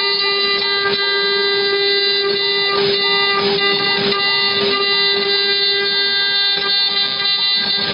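CNC router spindle running with a steady high-pitched whine, with occasional brief clicks as the bit cuts.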